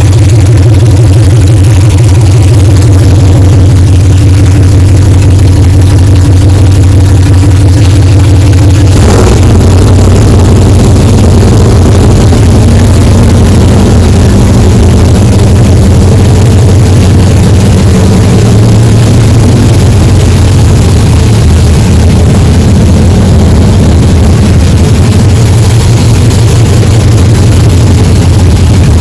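Red Chevrolet Silverado pickup's engine idling loudly inside a closed garage. A short sharp sound about nine seconds in is followed by a slight change in the engine's note.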